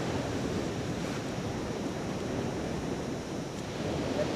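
Surf washing onto a sandy beach with wind, a steady noisy rush without any distinct breaks.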